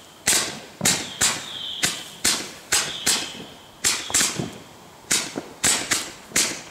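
Three neon roman candles firing together, each shot a sharp pop as a star is launched. The pops come about two a second, some in close pairs, with a short high tone trailing a few of them.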